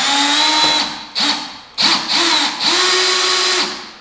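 Cordless drill boring holes into a car's plastic rear bumper, run in four bursts that each spin up quickly to a steady whine and then wind down. The longest burst comes near the end.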